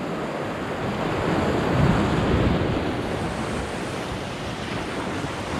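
Sea waves surging and breaking against rocks close below, a steady wash of surf that swells about two seconds in.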